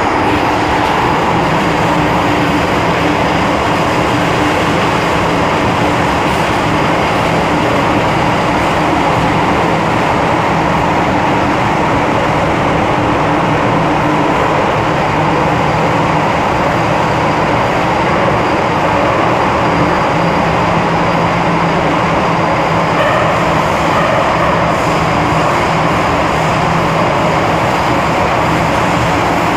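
Interior noise of an MTR Kwun Tong Line M-Train heard by the car doors: a loud, steady rumble with a few faint steady hums through it.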